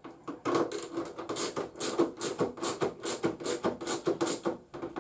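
Ratcheting hand tool clicking in a quick rhythm of about four bursts a second as a Torx bolt on a motorcycle fairing is undone by hand.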